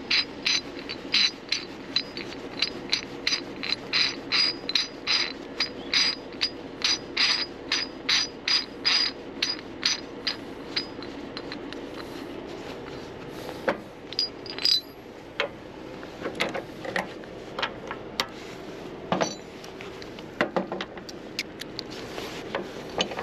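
Metal hand tool working a bolt in a truck's front bumper: an even run of sharp metallic clicks, about two to three a second, for roughly the first half, then scattered clinks of the tool and socket being handled. A steady low hum runs underneath.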